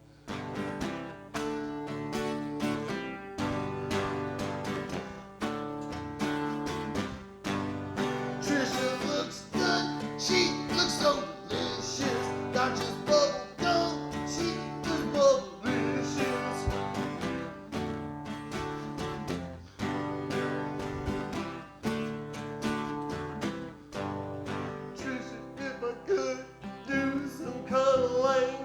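Music with a steady strummed rhythm and changing chords.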